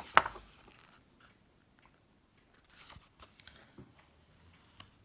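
A page of a large book being turned: one quick, loud papery flap right at the start, then faint rustles and light touches of the paper as the page settles.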